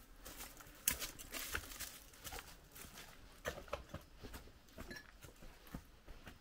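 Quiet, irregular footsteps with scattered light clicks and rustles, steps spaced unevenly.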